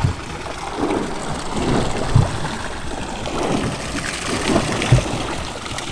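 Water slapping and lapping against the hull of a small drifting boat, with wind noise, in uneven swells and a couple of short low thumps about two and five seconds in.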